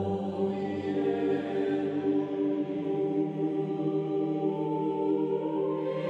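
Background music with slow, sustained chords.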